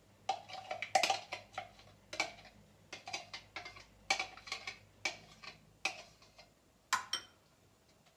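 A spoon knocking and scraping against a blender jug while a thick banana-yogurt mixture is scraped out into a bowl. It makes a string of irregular sharp clinks, one every half second to a second.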